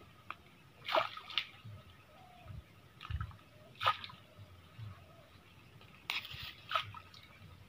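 Small pieces of bait tossed by hand into shallow river water, landing with short plops and splashes, about five in all, spread a second or more apart.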